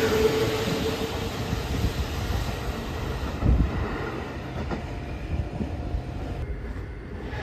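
Kintetsu 1201-series electric train pulling away from the platform. A steady whine runs for the first second, then wheels knock over rail joints as the train's rumble fades into the distance.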